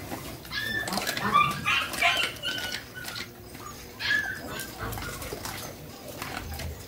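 A pack of German shepherds and other dogs feeding together from a trough of raw meat and bones: chewing and crunching clicks throughout, with short high squeals and whines from the dogs jostling at the food.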